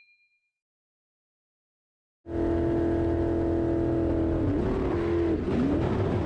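An engine running at a steady pitch over a low rumble, cutting in suddenly about two seconds in after silence; near the end its pitch dips and rises a few times.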